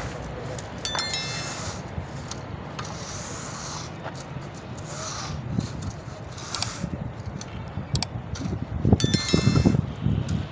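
Metal straightedge being drawn across the sand bedding for paving blocks, a gritty scraping as the sand is levelled. Two sharp ringing metallic clinks, about a second in and again near the end, with some heavier knocks at the end.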